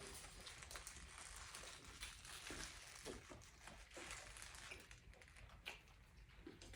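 Faint eating sounds from people eating burgers: scattered soft clicks and rustles of chewing and wrapper handling.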